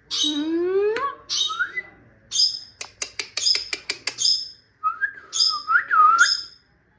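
Pet parrot calling: short, shrill squawks again and again, a rising whistle in the first second, a quick run of clicks about halfway through, and a warbling whistle near the end.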